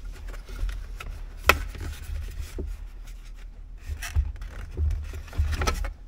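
Plastic trim clips and the shift-boot bezel of a Ford F-150 center console clicking and scraping as fingers pry the bezel loose. There is a sharp click about a second and a half in, then a few softer clicks and rubs near the end.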